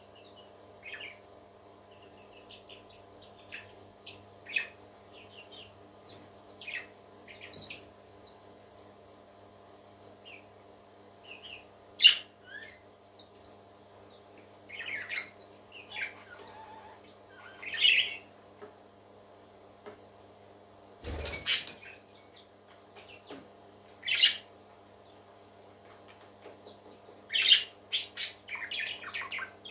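Parrots chirping: quick runs of high peeps and louder squawking calls every few seconds, over a steady low hum, with a single sharp knock about 21 seconds in.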